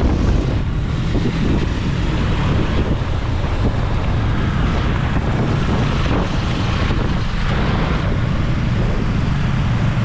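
Wind rushing over the microphone of a moving motorcycle, with engine and road noise underneath. The sound is steady and loud.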